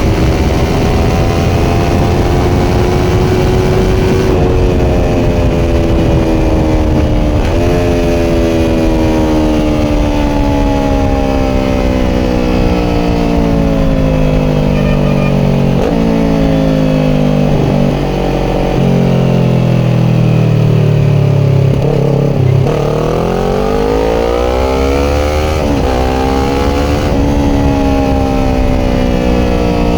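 Kawasaki Ninja 400's 399 cc parallel-twin engine through a Yoshimura slip-on exhaust, with wind and road noise, on the move. The revs fall steadily with several quick jumps in pitch, as when downshifting. Just past the middle the revs climb hard through a couple of gear changes.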